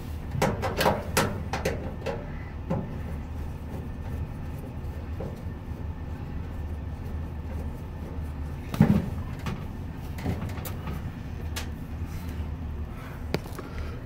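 Scattered knocks and clanks of metal parts being handled inside an opened clothes dryer's lower cabinet, with a quick cluster in the first two seconds and the loudest knock about nine seconds in, over a steady low hum.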